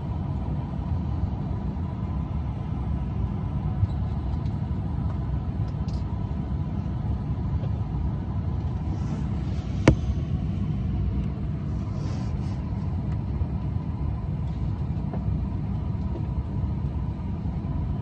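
Steady low rumble of a parked airliner's cabin, its air-conditioning running, with a faint steady whine. A single sharp click comes a little past halfway.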